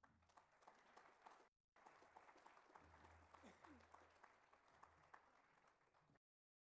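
Audience applauding, a dense patter of many hand claps with a brief dropout about one and a half seconds in; it cuts off abruptly near the end.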